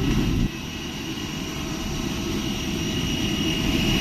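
Jet airliner engines running with a steady high whine made of several held tones over a rushing noise, slowly getting louder.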